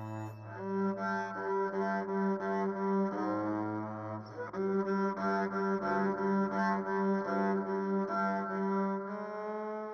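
Film score music of bowed low strings, cello-like, playing short repeated notes that shift in pitch, settling into one long held note near the end.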